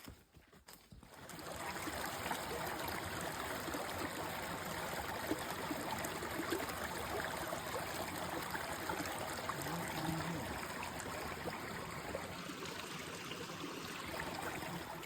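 Steady flowing water of a stream, starting about a second in.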